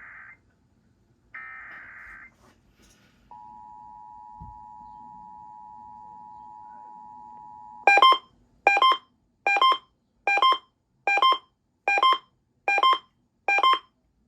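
Emergency Alert System test tones: the last two raspy SAME digital header bursts, then the steady two-tone EAS attention signal (853 and 960 Hz) for about four and a half seconds. About eight seconds in it gives way to a louder, evenly repeated beep, about one every 0.8 s.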